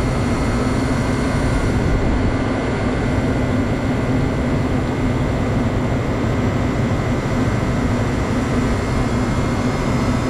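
Walk-in freezer condensing unit running: a steady drone of the condenser fan and compressor with a constant low hum.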